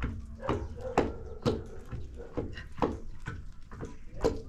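Wooden pestle pounding in a tall wooden mortar: a steady run of dull knocks, about two a second.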